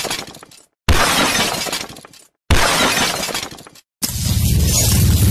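Logo-intro sound effects of surfaces cracking and shattering: two loud crashes, each dying away over about a second, a second and a half apart. Then, about four seconds in, a steady low rumble with a hiss over it begins.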